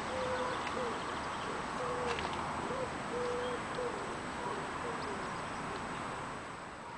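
A pigeon cooing: a run of short, even coos, one about every half second, that stops about five seconds in, over steady outdoor background noise.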